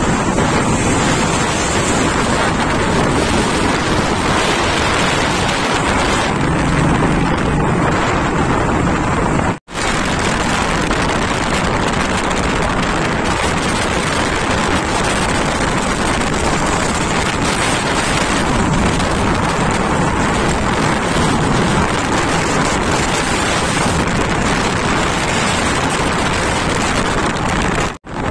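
Heavy wind noise on the microphone of a camera held by a rider on a moving motorcycle, mixed with road and engine noise. It drops out abruptly for an instant about ten seconds in and again near the end.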